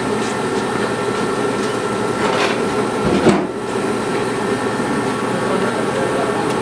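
A motor running steadily, with a single knock about three seconds in.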